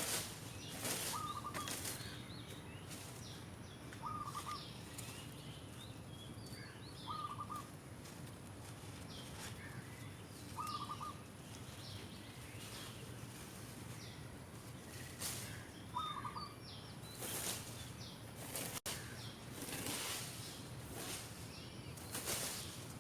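Broom swishing over the ground as dry leaves are swept, in short strokes with pauses between them. A bird repeats a short call about every three seconds, and other birds chirp faintly.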